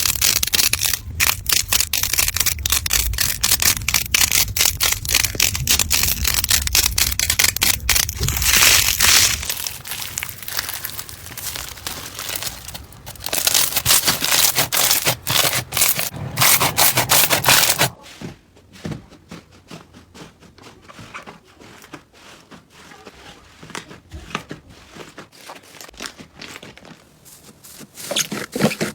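Slime being squeezed, stretched and poked close to the microphone: dense crackling and popping clicks, much quieter from about two-thirds of the way through.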